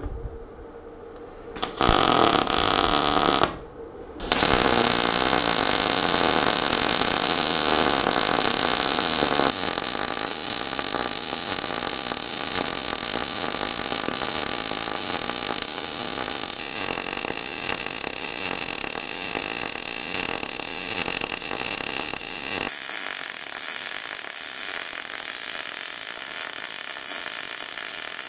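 MAG welding arc at 62 A and about 16 V in short-circuit transfer, crackling and hissing steadily as a vertical-up weld is run on 3 mm steel plate. The arc strikes briefly about two seconds in, stops, then relights about four seconds in and burns without a break from there on.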